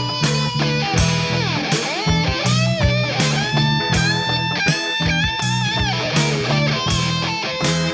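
Background rock-style music: electric guitar playing lines with bends and slides over bass and a steady beat.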